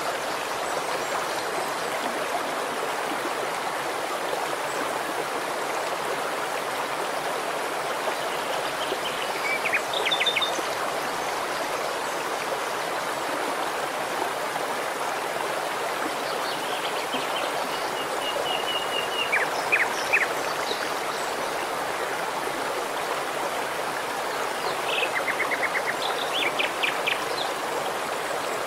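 A shallow stream running steadily over stones, an even rush of water. A small bird calls three times over it in short runs of quick, high notes: about ten seconds in, again around eighteen to twenty seconds, and near the end.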